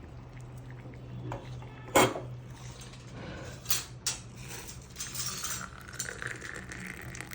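Kitchen dishes and utensils clinking: one sharp clink about two seconds in and a few lighter clinks later, over a steady low hum.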